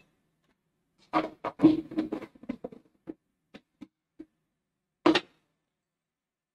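Taps and knocks from a cosmetic bottle being handled while an enzyme peel is prepared. A quick irregular run lasts about two seconds, followed by a few single ticks and one last knock about five seconds in.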